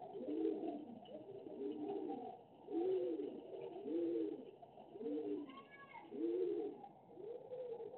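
Low cooing calls repeated about once a second, the cooing of a pigeon or dove, with a brief higher chirp a little past halfway.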